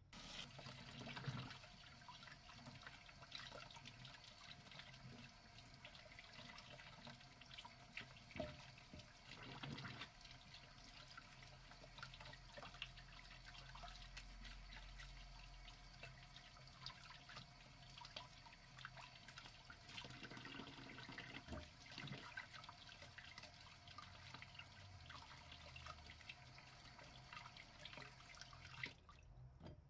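Faint splashing and sloshing of water as sweet potatoes are rubbed clean by hand in a bowl, with irregular small splashes and knocks.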